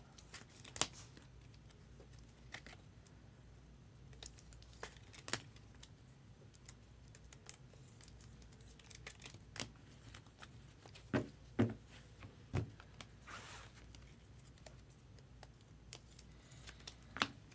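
Faint handling of trading cards and their packaging: scattered light clicks and ticks, a few sharper ones a little past the middle, and a short papery rustle shortly after.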